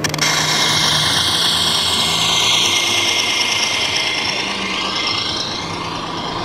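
Radio-controlled scale model tractor-trailer truck driving past, its electric drive whining with a pitch that slides down and then back up, over the steady noise of a busy exhibition hall.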